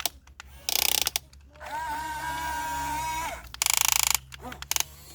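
Radio-controlled model excavator's small electric drive motors and plastic gears working: two short, harsh rattling buzzes with about a second and a half of steady motor whine between them, and a few clicks near the end.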